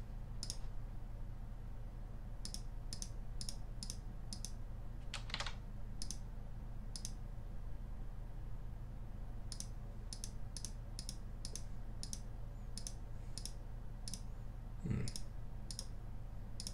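Light, sharp clicks of a computer mouse in quick runs of several a second as tools and colours are picked and the spray can tool is dabbed on the canvas, over a steady low electrical hum. Near the end comes one duller thump.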